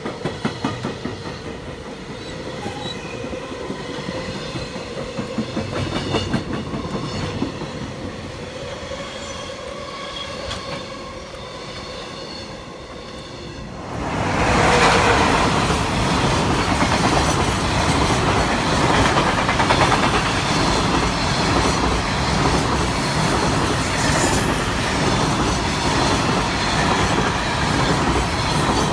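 Container freight wagons rolling past close by, their wheels clattering rapidly over the rails with a steady tone ringing above the clatter. About halfway through the sound cuts to a louder, denser rumble of another container train passing.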